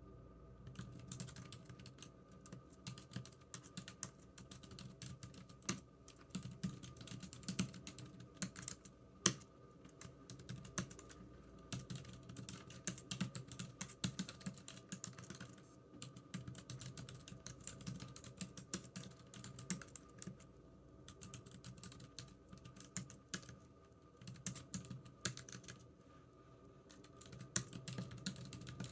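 Typing on a computer keyboard: quick runs of key clicks with a few brief pauses.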